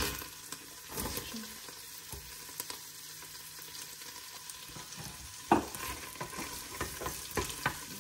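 Chopped onion, garlic and ginger sizzling in butter in a stainless steel pot, stirred with a spoon that knocks against the pot now and then, loudest about five and a half seconds in.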